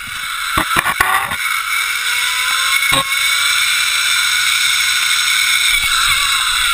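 Zip line trolley's pulleys rolling fast along the steel cable: a loud, steady high whir that swells and rises slightly in pitch as the rider picks up speed, with a few sharp clicks in the first seconds.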